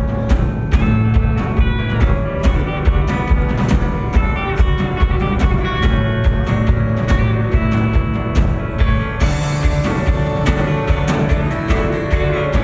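Live rock band playing a slow song: drum kit keeping a steady beat under guitars and bass. About nine seconds in, a bright wash comes in over the top, as of the drummer opening up on the cymbals.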